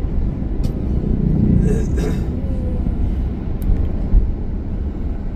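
Steady low road and engine rumble inside a moving car, with a short low thump about four seconds in.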